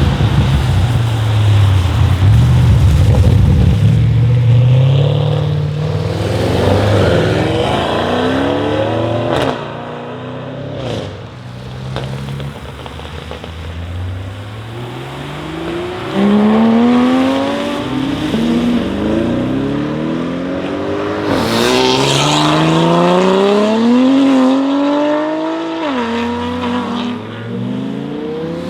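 Audi RS6 C8's twin-turbo 4.0-litre V8 with a Capristo exhaust, running loud and accelerating hard. It starts as a heavy low rumble, then the engine note climbs and drops back sharply several times as it shifts up through the gears.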